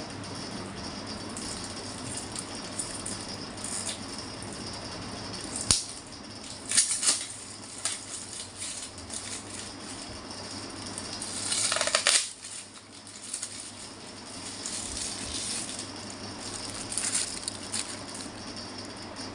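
Rattling and clicking handling sounds over a steady hiss, with a few sharp knocks about six to seven seconds in and a louder rush that builds just before twelve seconds and cuts off suddenly.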